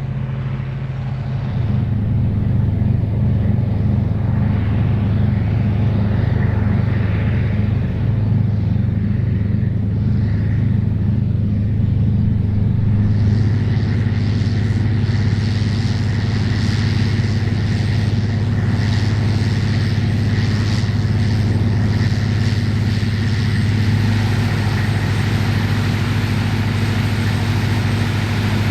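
Big diesel engines of articulated four-wheel-drive tractors working under load as they pull ploughs through the field, a steady deep drone. It gets louder about a second and a half in, and from about halfway more hiss and rattle join the low drone.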